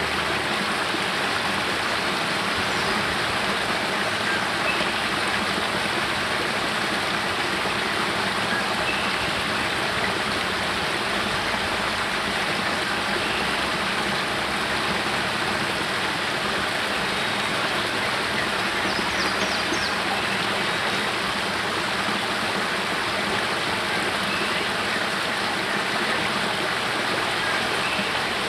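Spring water flowing out of a cave and splashing down a small rocky cascade into a pool: a steady rushing of water at an even level.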